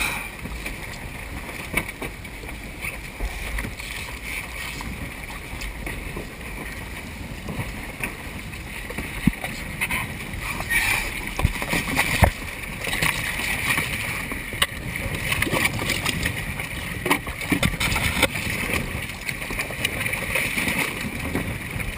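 Water sloshing along the side of a boat with wind rumbling on the microphone, and a few short knocks as kayaks and gear crates bump against the boat's hull about halfway through.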